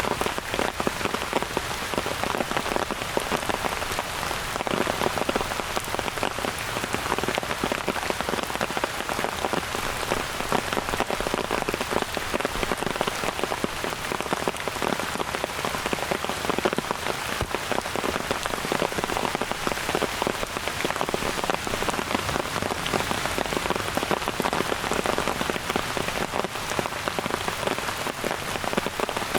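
Steady rain falling, a dense, even patter of drops without let-up.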